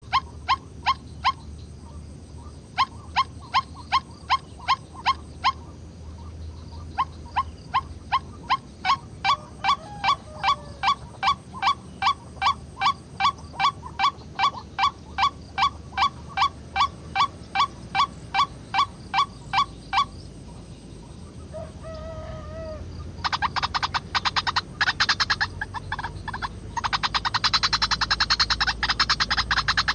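White-breasted waterhen calls played through a small speaker as a trapping lure: a loud run of repeated 'kwak' notes, about two and a half a second, broken by short gaps. After a brief lull near the end the calling turns into a faster, harsher chattering.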